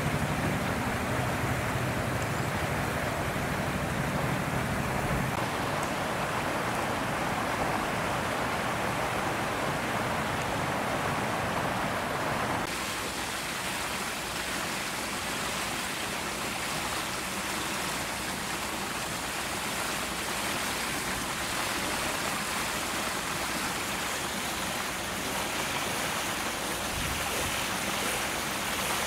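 Steady rushing background noise with no clear single source, changing abruptly in tone about thirteen seconds in.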